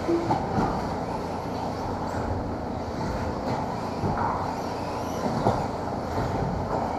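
Radio-controlled racing cars running laps on an indoor carpet track: a steady rumble and whir of motors and tyres, with a few faint knocks from the cars hitting the track.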